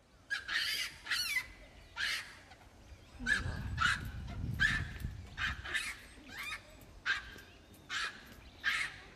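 Japanese macaques calling: a series of short, sharp calls, about one or two a second, some rising or falling quickly in pitch. A low rumble sits under them from about three to five seconds in.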